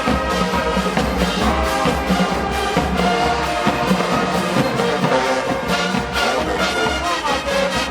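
Marching band playing: a full brass section of trombones, trumpets and horns carries the tune over a steady driving beat from the low drums.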